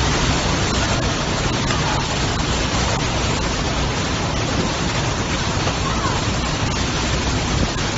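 Storm-force wind and heavy driving rain: a steady, dense rushing noise as the gale lashes trees and paving.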